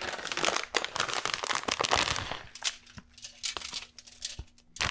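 A plastic bag of shredded cheese crinkling as the cheese is shaken out and sprinkled by hand onto a foil-lined tray of nachos. The crinkling is dense for the first two and a half seconds, then thins to scattered crackles.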